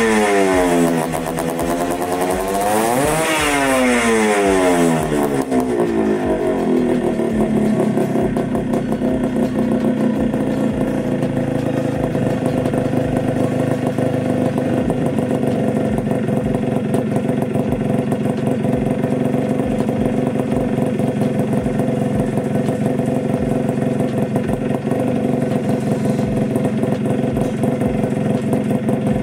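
Suzuki Shogun's two-stroke single-cylinder engine, running on a newly fitted iridium spark plug. It is revved: the pitch falls, blips up once about three seconds in, then drops back. From about five seconds in it settles into a steady idle.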